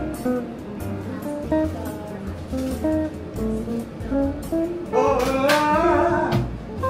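Background music: a light tune of picked acoustic guitar notes over a steady bass beat.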